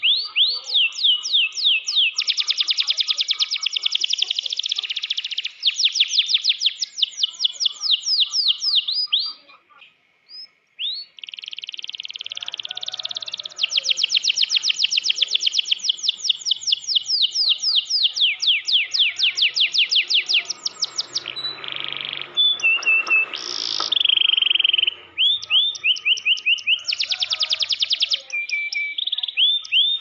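Domestic canary singing its rolling song: long runs of rapid, high repeated notes, phrase after phrase, with a brief pause about ten seconds in.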